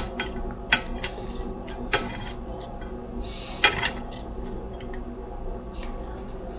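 Utensils and dishes clinking as food is served, several sharp clicks at uneven intervals, the loudest a little past halfway. A steady low hum runs underneath.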